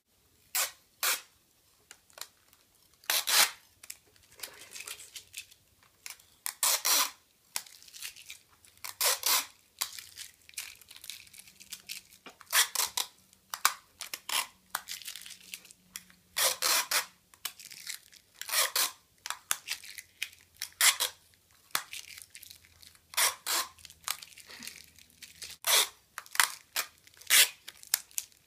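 Clear Tesafilm (Sellotape) adhesive tape being pulled off the roll of a hand-held dispenser again and again, in short sticky rasps at irregular intervals, a second or two apart.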